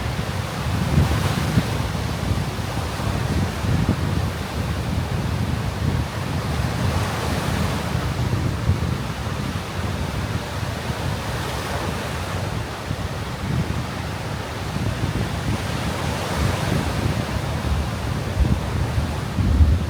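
Surf breaking on a sandy beach, with about four waves washing in over the stretch. Wind rumbles on the microphone underneath.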